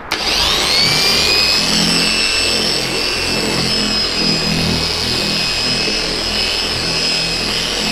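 Electric dual-action polisher switched on, spinning up within about half a second and then running at low speed with a steady high whine as its pad spreads polish across the car's paint.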